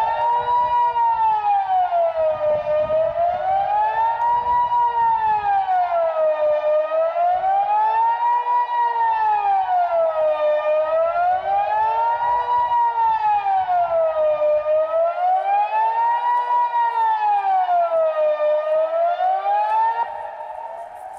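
Kockum Sonics Delta 6-AT electronic civil-defence siren sounding the Swiss 'general alarm' (Allgemeiner Alarm) in a test. It gives a single steady wail that rises and falls smoothly about once every four seconds, the signal that tells people to switch on the radio and follow the authorities' instructions. The wail cuts off abruptly near the end.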